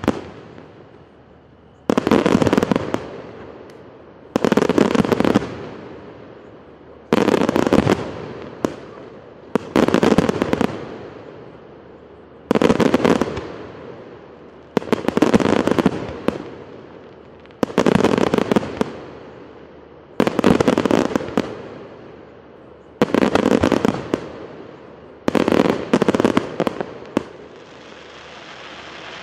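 Aerial firework shells bursting one after another, about every two and a half seconds, ten in all. Each is a sharp bang followed by a dense crackle that fades with an echo. A steady rushing noise rises near the end.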